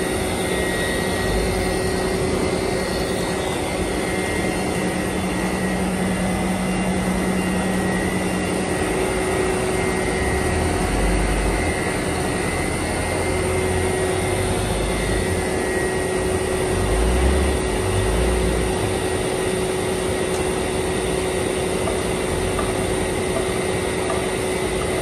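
Machinery of an HDPE geomembrane production line running: a steady mechanical drone with constant hums and a high whine, and a few low rumbles in the middle.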